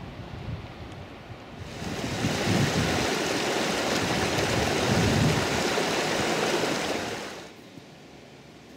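Mountain stream rushing over rocks in a small cascade, a steady loud rush that comes in about two seconds in and cuts off about a second before the end. Before it there is a low rumble.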